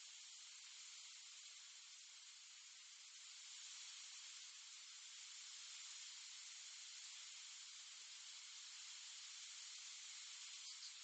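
Near silence: a steady faint hiss, the noise floor of a security camera's microphone.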